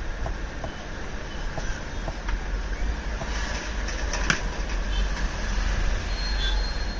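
Steady low rumble of background traffic noise, with a few light clicks and one sharper click about four seconds in.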